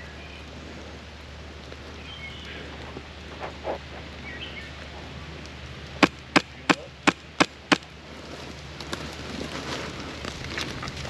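Airsoft gun fired six times in quick semi-automatic succession, about three shots a second, a little over halfway through, over a steady hiss of rain.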